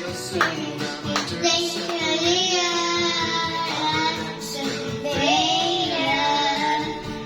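A child singing a children's song, holding several long notes with a slight waver in pitch.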